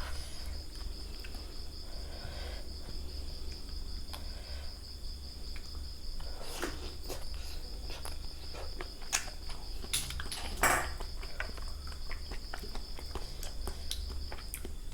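Steady high, finely pulsing chirring of crickets over a low background hum. A few sharp clicks and taps come in the second half.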